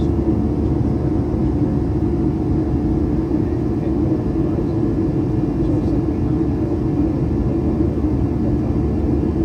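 Steady drone of an airliner's turbofan engines and rushing air, heard inside the cabin, with a few faint steady hums on top.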